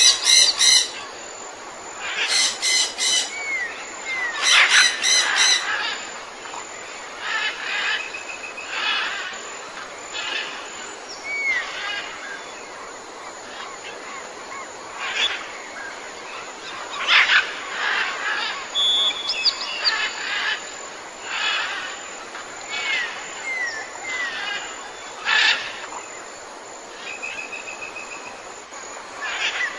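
Jungle ambience: several birds calling in short, repeated bursts, with a few brief curved whistles among them, over a steady high hiss.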